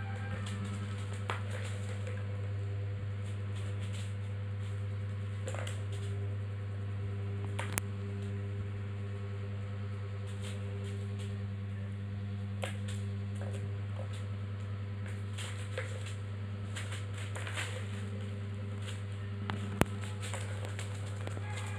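Scattered sharp plastic clicks and knocks of a kitten batting balls around a plastic ball-track tower toy, the loudest a little under halfway and near the end, over a steady low hum.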